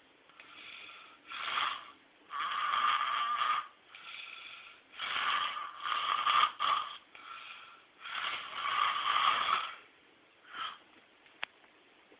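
A person snoring: a run of irregular, noisy snoring breaths, each about half a second to a second and a half long, with short gaps between them. Near the end comes a pause broken by one short snore and a single sharp click.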